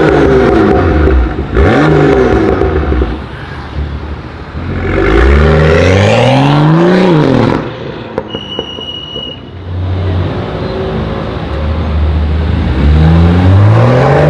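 BMW M2's turbocharged straight-six through an Akrapovic exhaust, revved hard. There are two quick blips at the start, then a long climbing rev that drops off about seven seconds in. The engine settles to a steadier low drone, then climbs again near the end.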